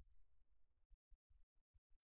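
Near silence, with a faint, broken low rumble and a brief click at the very start.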